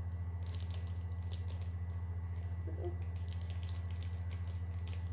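Scissors snipping at a small plastic glitter sachet: a run of light, irregular clicks and crinkles. The scissors are loose at the pivot and described as falling apart. A steady low hum runs underneath.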